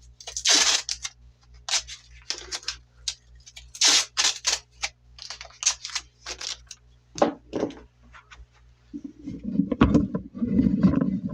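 Plastic wrap and strips of tape being handled: a run of short, sharp crackles and scratchy rustles. From about nine seconds in, a denser low rumbling and knocking handling noise takes over.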